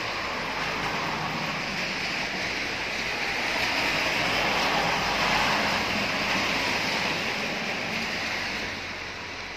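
Rushing hiss of tyres on a wet, slushy road. It swells gradually to its loudest about halfway through as a vehicle passes, then fades near the end.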